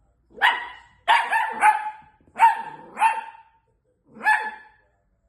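Long-haired miniature dachshund puppy barking: a loud, high-pitched string of about seven short barks, several in quick succession, with a pause before the last one.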